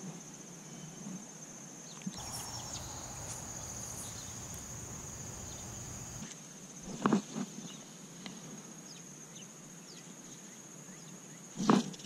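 Steady, high-pitched drone of insects in a summer chorus, with a stretch of low rumbling noise from about two to six seconds in and a couple of brief knocks, one about seven seconds in and one near the end.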